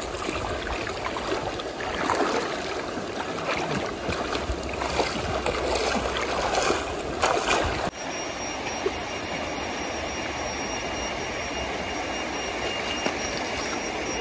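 Shallow river water running and splashing as someone wades through it over stones. About eight seconds in it cuts off suddenly, giving way to a steady outdoor hiss with a faint high steady tone.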